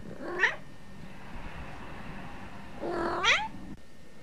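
Domestic cat meowing twice, each call rising in pitch: a short one about half a second in and a longer one about three seconds in.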